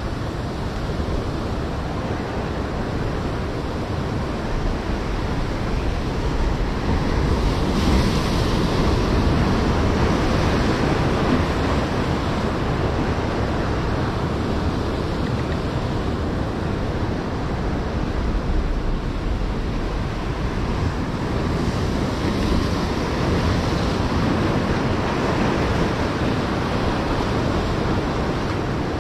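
Sea surf washing and breaking against the shore, with wind buffeting the microphone. The wash swells louder about eight seconds in and again a little past twenty seconds.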